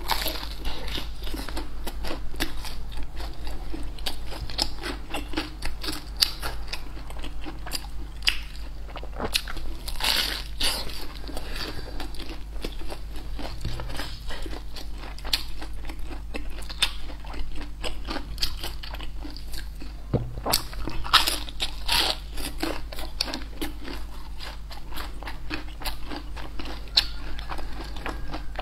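Close-miked crunching and chewing of crispy deep-fried food, with many crisp bites and crackles, over a steady low hum.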